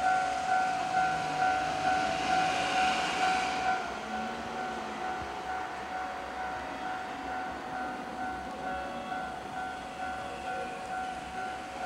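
Japanese railway level-crossing warning bell ringing repeatedly, about two rings a second. For the first four seconds it sounds over the noise of a passing train, which then fades.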